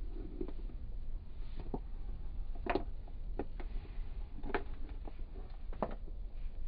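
Steady low rumble of a car cabin on the move, with about five sharp knocks at uneven intervals.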